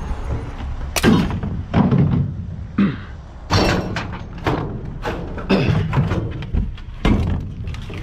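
A series of irregular thumps and clunks from scrap being handled inside a steel dumpster: metal conduit and wire bundles shifting, with a plastic tote knocking against them.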